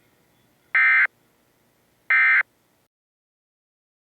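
Emergency Alert System SAME end-of-message data bursts: two short, identical buzzy bursts of digital data tones about 1.4 seconds apart. These are the last two of the three bursts that close an alert message.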